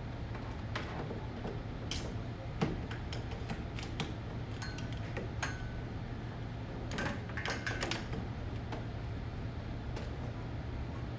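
Things being handled and moved around on a desk: scattered light knocks and clicks, with a quick cluster of rattling clicks a little past halfway, over a steady low hum.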